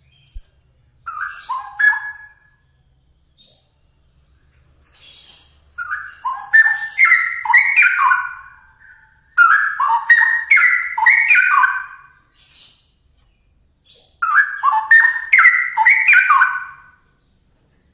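Straw-headed bulbul (cucak rowo) singing loud warbled phrases: a short phrase about a second in, then three longer phrases of two to three seconds each, with short pauses between them.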